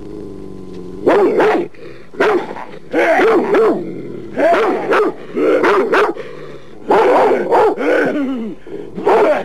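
Chained white dog barking repeatedly, in quick runs of two or three barks.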